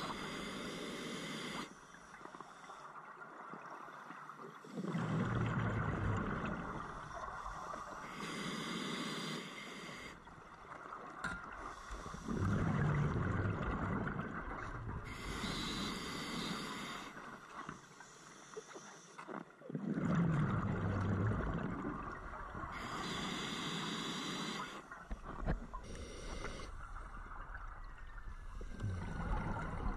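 Scuba diver breathing underwater through a regulator: a hiss as each breath is drawn, then a low bubbling rush as it is exhaled, about four slow breaths, roughly one every seven seconds.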